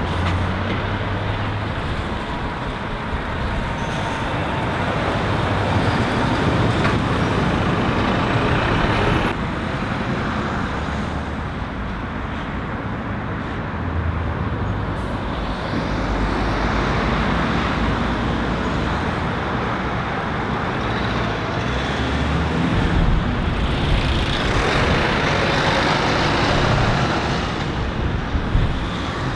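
Road traffic at a roundabout: an articulated bulk tanker lorry's diesel engine pulling round, with cars and vans passing and steady tyre noise.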